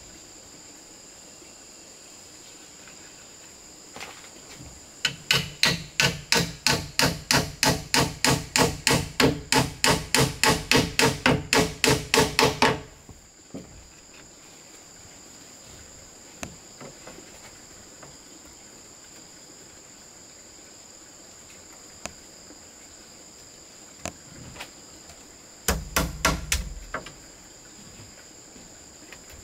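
Hammer striking wood in a fast, even run of about thirty blows, roughly four a second, then a short burst of about five more near the end, with a few single knocks between. Insects keep up a steady high drone in the quieter stretches.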